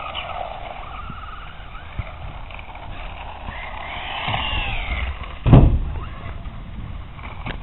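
Mad Fighter RC buggy's electric motor whining as it drives on asphalt, its pitch rising and falling with the throttle over a low rumble of wheels and gears. A loud thump comes about five and a half seconds in.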